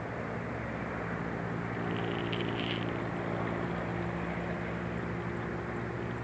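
Steady city traffic noise with a vehicle's engine hum that comes in about a second and a half in, swells slightly and fades near the end. A few faint high chirps sound about two seconds in.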